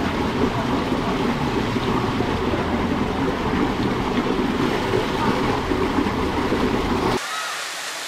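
Water rushing steadily down the start of a tall body speed slide, a loud even rush. It cuts off abruptly about seven seconds in, leaving a quieter, thinner background.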